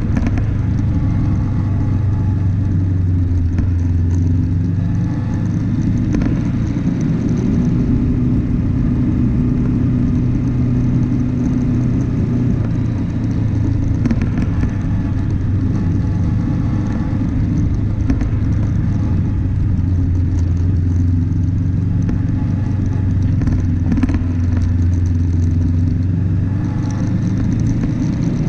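Car engine running steadily at low speed on a rough gravel track, heard from inside the cabin, with a few knocks and rattles from the bumps.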